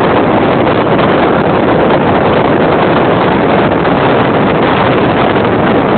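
Strong wind buffeting the microphone: a loud, steady rush of noise with no let-up.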